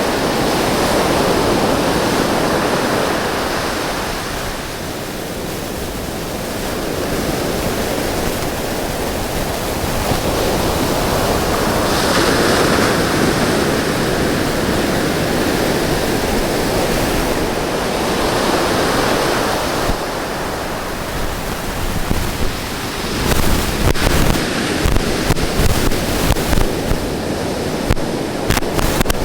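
Ocean surf breaking and washing up a beach, a steady roar that swells and eases every several seconds. In the last few seconds, wind gusts buffet the microphone.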